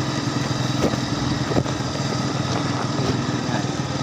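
A vehicle engine running steadily at an even pitch, with a couple of faint knocks about a second in.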